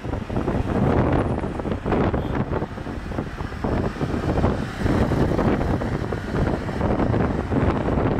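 Road noise of a moving car in city traffic with wind rushing past, heard from inside the car through the side window; it swells and dips unevenly.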